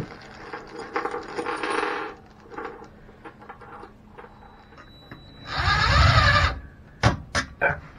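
Handling and rubbing noise, then a red cordless drill/driver running in one short burst of about a second on the toilet seat's hinge bolt, followed by several sharp metallic clicks and clinks of the loose bolt hardware.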